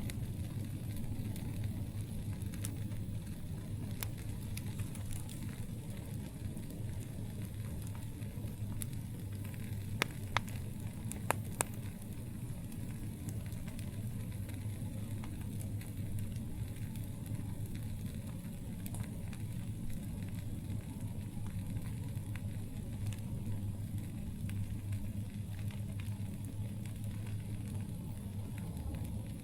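Campfire crackling, with scattered small pops and a few sharper, louder pops in a cluster about ten to twelve seconds in, over a steady low hum.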